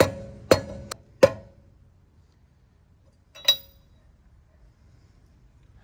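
Metal lug wrench clanking against the wheel's lug nuts: four sharp knocks with a short ring in the first second or so, and one more about three and a half seconds in.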